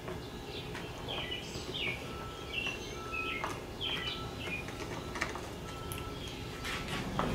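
Small birds chirping in short falling calls, mixed with scattered light clicks and taps of hand-tool work on the chainsaw's air filter nuts.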